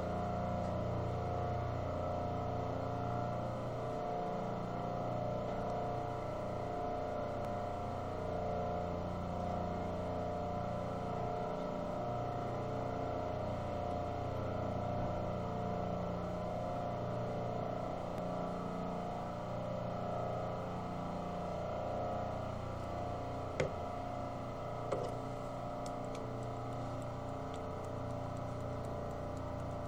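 A steady machine-like hum made of several constant tones, with two small sharp clicks about three-quarters of the way through.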